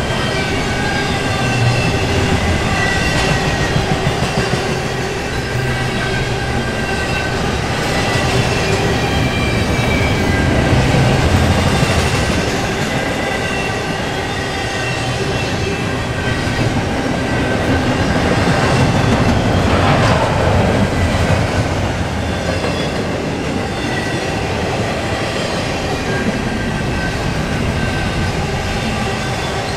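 Loaded double-stack intermodal container well cars rolling past close by: a steady rumble and clatter of steel wheels on the rails, with thin, steady high-pitched wheel squeal running through it.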